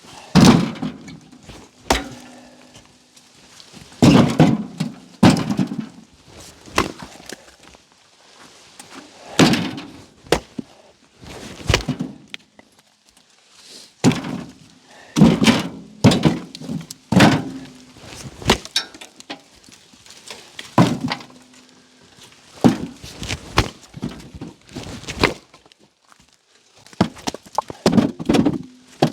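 Collins axe chopping small cherry firewood chunks into smaller pieces: repeated sharp chops at an uneven pace, about one every second or two, a few followed by a short low ring.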